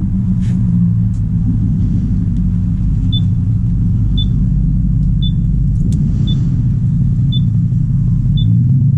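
Yamaha XMAX 300's single-cylinder engine idling steadily with the scooter stopped. From about three seconds in, a short high beep repeats about once a second.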